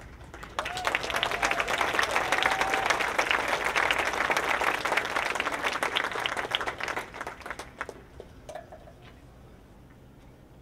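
Audience applause in response to a call to thank the teachers and staff. It breaks out about half a second in, stays strong for several seconds, then dies away by about eight seconds in.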